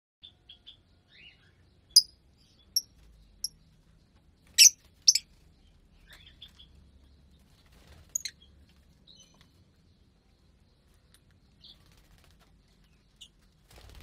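Lovebirds chirping: short, sharp, high calls given one at a time at irregular intervals, the loudest a couple of seconds in and around the middle.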